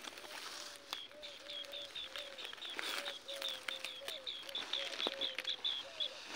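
Birds calling: a fast run of short, high, repeated notes, about four a second, starts about a second in and stops near the end. Lower, curved calls sound alongside, with a few scattered clicks.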